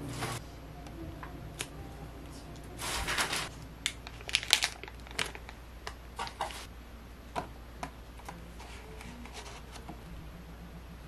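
Plastic food packaging handled as groceries are unpacked: a rustling, crinkling burst about three seconds in, then a scatter of sharp plastic clicks and taps from clamshell containers and bags.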